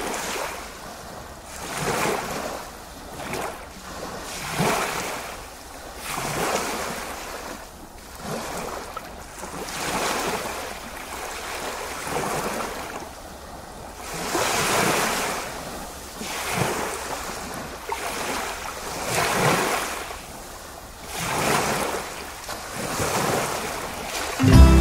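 Sea waves washing in and out, the surf noise swelling and falling away every two seconds or so.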